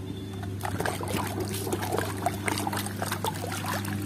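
Water splashing and dripping as a muddy plastic toy figure is swished and rinsed in a tub of water, starting about half a second in. A steady low hum runs underneath.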